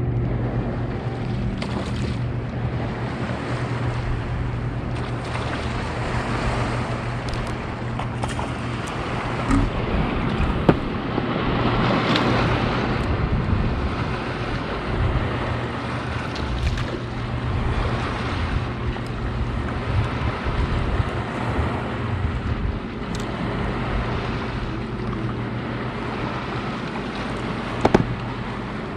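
A boat's motor running with a steady low hum over wind and water noise, with a couple of sharp knocks, one about ten seconds in and one near the end.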